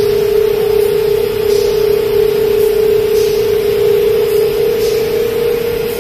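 Candy production line machinery running: a steady hum with a strong constant tone, and a faint hiss pulsing a little more than once a second.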